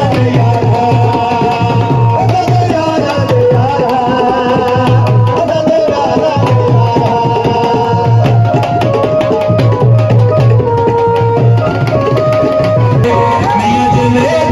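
Music with a steady, regular drum beat and a gliding melody line over it.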